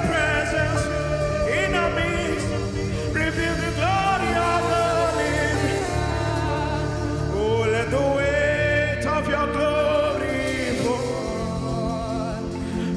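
Live gospel worship music: a singer holding long, wavering sung notes over keyboard and drums.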